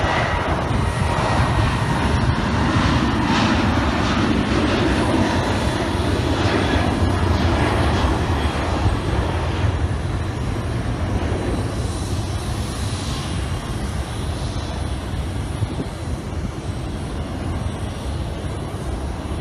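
Boeing 737 turbofan engines at takeoff power: a steady jet roar and low rumble with a faint thin whine, loudest in the first half and slowly fading as the airliner climbs away.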